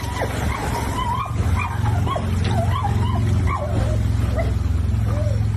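A dog whining and yipping in a rapid string of short, wavering high-pitched cries, over a steady low hum.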